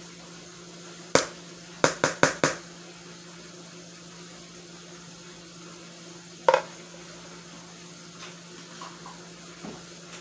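A spoon knocking against a bowl as a tablespoon of sour cream is knocked off into mashed potatoes: one sharp tap, then four quick taps about a second later, and another single tap midway. A steady low hum sits underneath.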